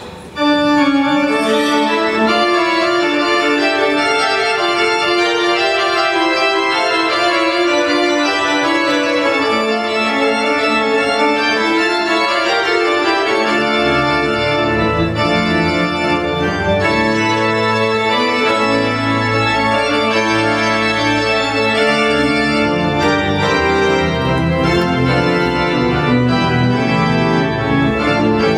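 Church pipe organ playing sustained chords, with deep pedal bass notes joining about halfway through.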